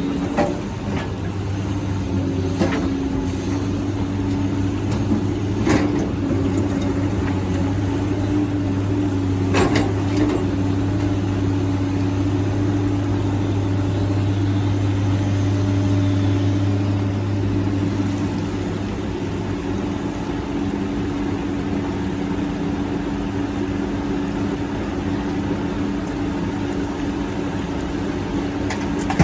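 Hydraulic excavator's diesel engine running steadily while it digs and loads, with a few sharp knocks in the first ten seconds. The deep hum of the engine under load eases about two-thirds of the way through.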